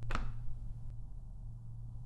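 A single sharp knock at the start, followed by a faint tick about a second later, over a steady low electrical hum.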